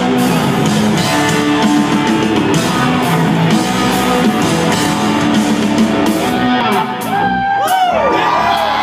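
Live rock trio playing loud: electric guitar, electric bass and drums. About seven seconds in the full band drops back and a few sustained notes bend up and down in pitch.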